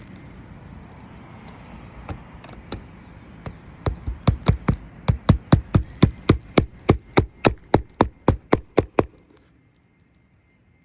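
Hammer driving roofing nails into shingles: a few light taps, then a steady run of about twenty sharp strikes, roughly three a second, growing louder before stopping.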